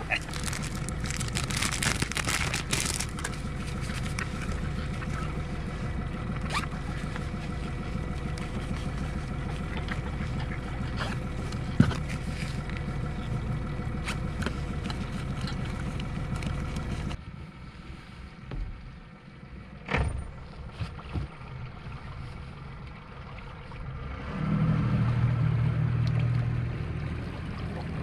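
A motor engine running with a steady low hum and scattered clicks. About two-thirds of the way through, the sound drops abruptly to a quieter stretch with a few sharp knocks. Near the end a low engine hum swells up louder.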